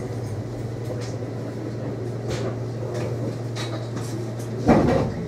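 Steady low hum of a Class 230 D-Train's Ford diesel engines and traction equipment, heard from inside the carriage at low speed. A single loud thump comes near the end.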